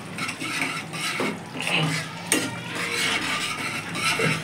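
Steel ladle stirring thickening gravy in a stainless steel kadai, scraping and clinking against the pan, with a few sharp clinks.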